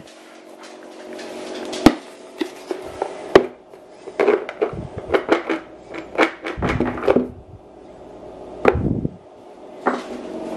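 Plastic Milk-Bone dog-treat canister being handled: sharp clicks, then clusters of rattling knocks as the dog biscuits are shaken and tipped inside it.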